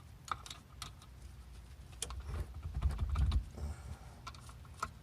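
Scattered light clicks and taps of hand work fitting the differential's mounting bolts, with a low rumble from about two to three and a half seconds in.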